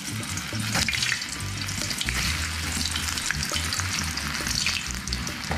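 Slices of green plantain frying in hot oil in a steel pot: a steady crackling sizzle with sharp pops, as more slices are dropped in.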